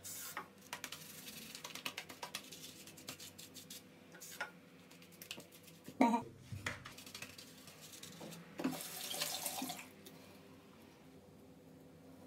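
Wet rubbing and splashing in short irregular bursts as shaving foam is worked into a beard by hand, with a single knock about six seconds in.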